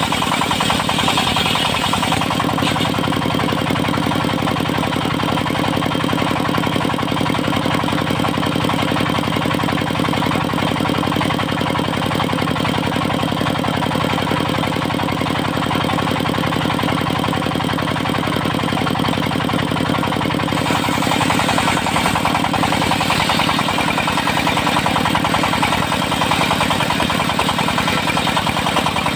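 Diesel engine driving a portable circular sawmill, running steadily with a fast, even chugging beat. About 20 seconds in the sound turns brighter and a little louder.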